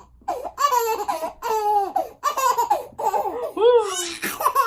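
Baby girl laughing hard in a string of short belly-laugh bursts, many of them sliding down in pitch.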